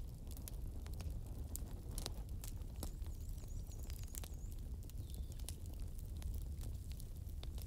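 Wood fire burning: irregular sharp pops and snaps of crackling logs over a steady low rumble.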